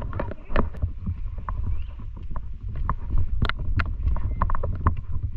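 Wind rumbling on the microphone, with irregular knocks and clicks of footsteps and handling on grass and wooden steps; the sharpest knock comes about three and a half seconds in.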